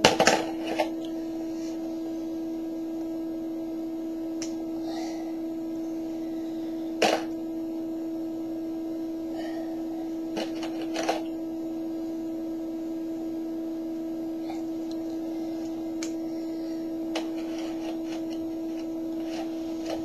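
A steady low electronic tone, plausibly from the electronics kit's speaker, with a few sharp clicks of the kit's plastic snap-together parts being handled near the start, about seven seconds in, and twice about eleven seconds in.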